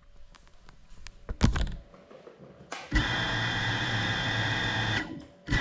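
Small FPV drone's brushless motors whirring at a steady pitch for about two seconds and cutting off, then a second half-second burst near the end, heard from the drone itself while it sits still. A thump with handling knocks comes a little over a second in.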